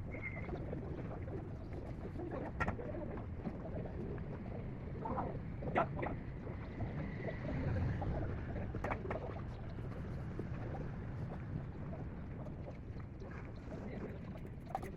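Steady low background rumble with a few sharp clicks or knocks, about three of them spread through, and a faint thin high note twice.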